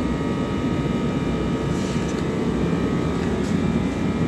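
A machine running steadily: an even drone with a few faint steady tones above it.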